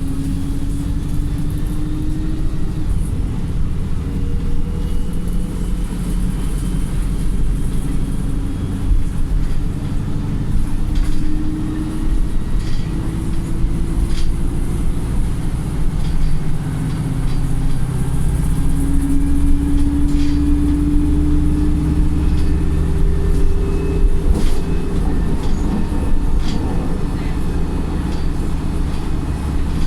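Wright StreetLite single-decker bus under hard acceleration, heard from on board: the engine note climbs several times over a constant low rumble. Occasional short clicks and rattles sound through the body.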